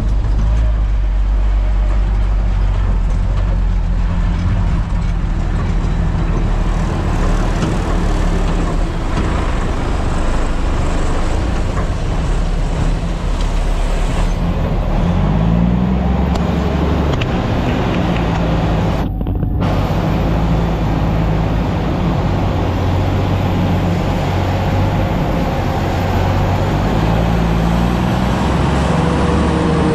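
Heavy diesel vehicle engine running steadily with a deep drone; its pitch rises and falls a few times as the engine speed changes.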